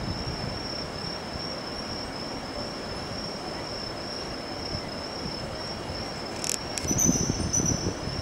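A steady high-pitched insect trill over low background noise, with a short click about six and a half seconds in and a few low thuds near the end.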